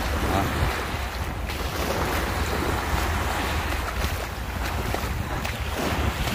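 Small sea waves washing over shoreline rocks and splashing against concrete steps, with wind buffeting the microphone as a steady low rumble.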